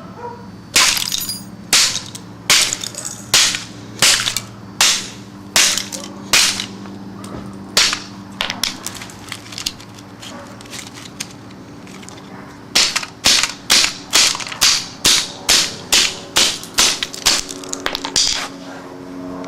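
A long series of hard smashing blows, about one a second, then a quieter spell of lighter knocks, then a quicker run of about two blows a second. A steady low hum runs underneath.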